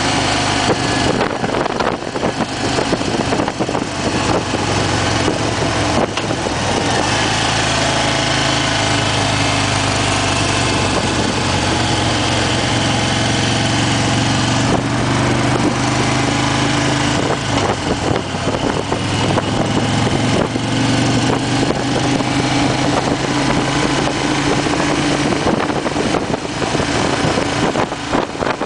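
2008 Harley-Davidson Fat Bob's V-twin engine running steadily at cruising speed, its note drifting a little as the speed changes, with wind rushing over the microphone.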